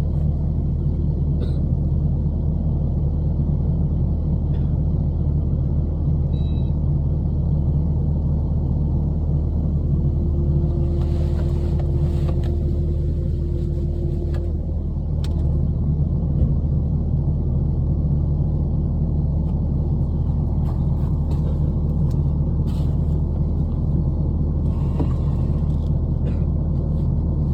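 An engine running steadily at low, even revs, a constant low rumble. About ten seconds in, a hiss with a faint steady whine rises over it for a few seconds.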